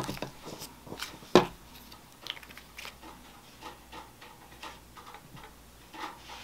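Quiet, scattered light clicks and taps of metal chopsticks and a squeeze tube at a dinner plate, with one sharper click about a second and a half in.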